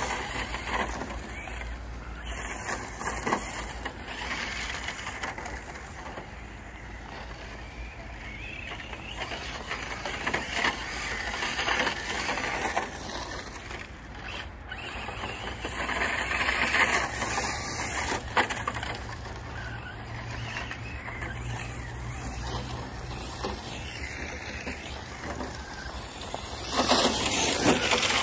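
Electric Hobao Hyper SC8 RC short-course truck driving over gravel: a steady rough motor-and-tyre noise that swells about two-thirds of the way through and again near the end as the truck comes close.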